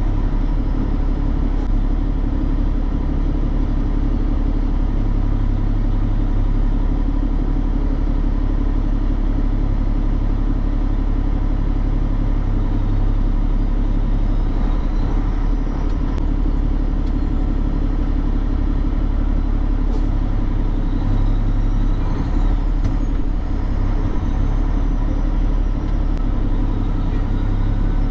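Steady low rumble of a truck's diesel engine and road noise.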